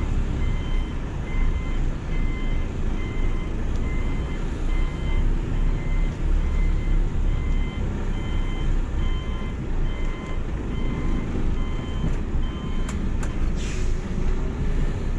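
Tractor-trailer's diesel engine running low and steady as the truck creeps along, with an electronic warning beeper sounding about twice a second until it stops near the end. A short air hiss follows just after.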